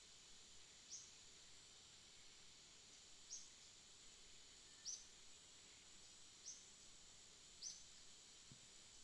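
Faint outdoor ambience. A small bird gives short, high chirps, each falling slightly in pitch, five times about a second and a half apart, over a steady high hiss.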